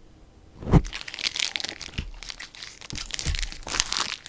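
Plastic food packaging crinkling and crackling as it is handled, with a knock about a second in.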